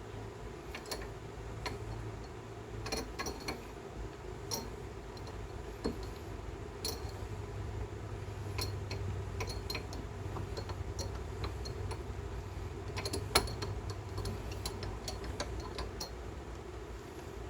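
A wood lathe motor running steadily, with irregular light clicks and ticks over it and one sharper click near the end.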